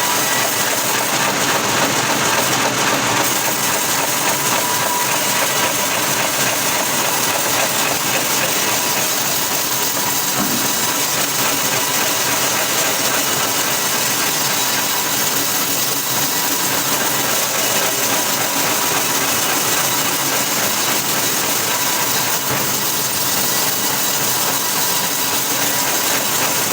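Machinery running steadily: an even, unbroken hiss with engine-like noise, no separate strokes or changes.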